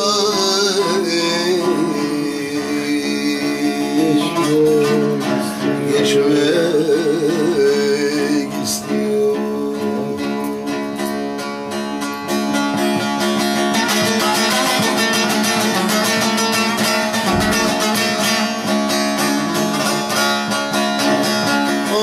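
Bağlama (Turkish long-necked saz) played with quick strokes, under a man singing a Turkish folk song. A held, wavering vocal line fills the first several seconds, then the saz carries on alone with fast, dense strumming over a steady low ringing note.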